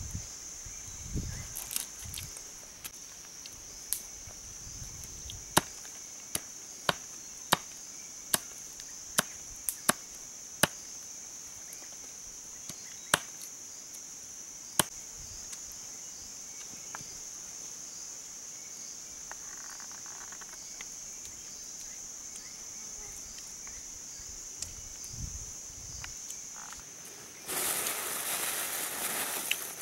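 Machete blade chopping cooked meat on a small wooden board: about a dozen sharp knocks, roughly one a second, then a pause. Insects buzz steadily at a high pitch throughout, and a burst of rustling noise comes near the end.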